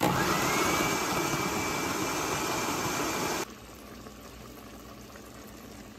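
Electric blender running at speed, grinding tomatoes to a purée: a loud motor whine that rises in pitch over the first second and then holds steady. It cuts off abruptly after about three and a half seconds, leaving a much quieter steady hiss.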